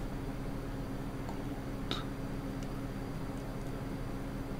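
Steady low electrical hum and room hiss, with one soft click about two seconds in and a few fainter ticks.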